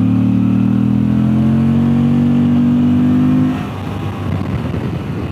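Moto Guzzi V85 TT's air-cooled transverse V-twin pulling hard under acceleration, its note climbing steadily for about three and a half seconds, then quietening abruptly into a rougher, lower-level running as the throttle is rolled off.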